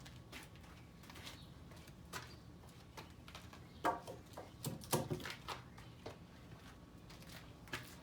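Scattered light knocks and clunks of 2x6 boards being handled, with a few louder clunks close together around the middle.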